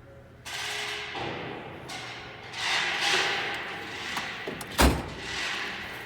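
Metal drawers of a Snap-on tool box sliding open and shut on their runners, with a sharp thud about five seconds in.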